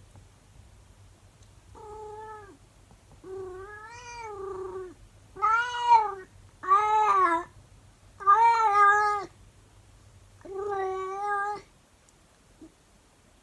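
An elderly calico cat meowing six times in a row, long drawn-out howling calls. The second is the longest, nearly two seconds, and the middle three are the loudest.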